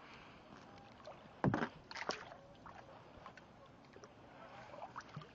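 Kayak paddling in calm water: the paddle blade dipping and splashing, with small drips and laps of water. A sharp knock or splash about a second and a half in is the loudest sound, followed by a second cluster of splashes about half a second later.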